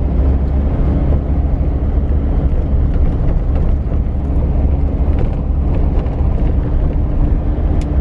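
Vehicle driving along a dirt road, its engine and tyres making a steady low rumble with a constant hum above it.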